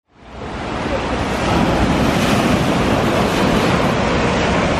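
Sea waves washing in and foaming among shoreline rocks, with wind buffeting the microphone. The sound fades up over about the first second, then holds steady.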